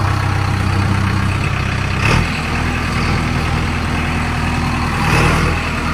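JCB 3DX backhoe loader's diesel engine running steadily. Its note shifts about two seconds in and swells briefly near the end.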